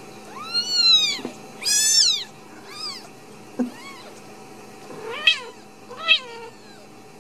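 Newborn Ragdoll kitten mewing: about six high-pitched cries, each rising then falling in pitch, the loudest two in the first two seconds. A vocal kitten, not a sign that anything is wrong with him.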